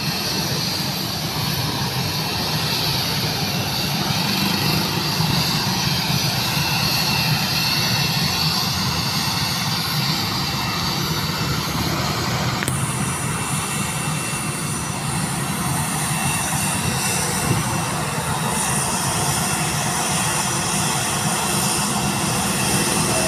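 Jet engines of a Philippine Airlines airliner running at low, steady power on the runway ahead of takeoff: a steady high whine over a dull rumble.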